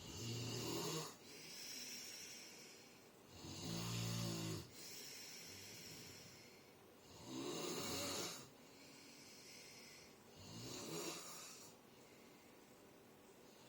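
A person snoring: four snores about three and a half seconds apart, each followed by a softer breath, and the snoring stops near the end.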